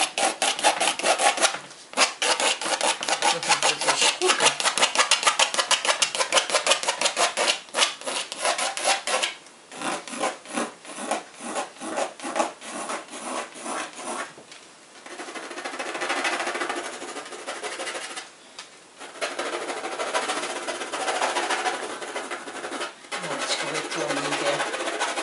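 A graphite pencil scratching across a canvas in quick, short wavy strokes, about six a second at first. About ten seconds in the strokes slow and space out, then run together into continuous scribbling broken by a few brief pauses.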